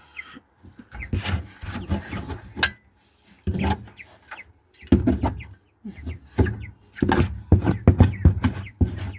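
Old sawdust bedding being scraped and scooped off a chicken coop floor, in irregular scraping bursts with sharp knocks.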